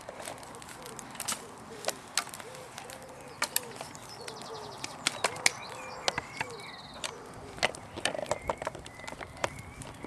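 Wood fire of sticks and pine cones crackling, with sharp irregular pops. A bird coos softly in the background.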